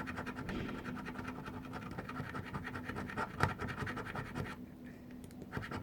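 Scratch-off card being scratched: rapid scraping strokes across the coating, stopping briefly near the end.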